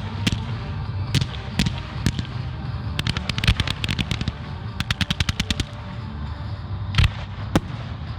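Fireworks going off: scattered single bangs, two rapid strings of crackling reports about a second long each, then two heavy booms about half a second apart near the end.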